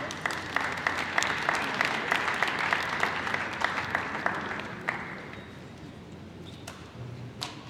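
Spectators applauding at a table tennis match, dying away after about five seconds, followed by a couple of sharp taps near the end.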